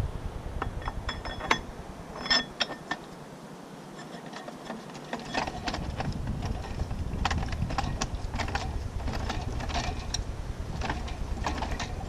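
Scattered light metallic clicks and knocks of 4L60E transmission parts being handled and shifted on the shaft, with a low steady rumble coming in about five seconds in.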